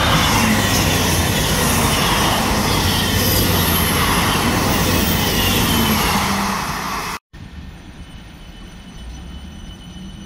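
South Western Railway Class 159 diesel multiple unit passing close at speed, its underfloor diesel engines droning under the loud rush of wheels on rail. About seven seconds in the sound cuts sharply to a quieter Class 455 electric unit running past on a further track, with a steady high tone and a faint rising whine.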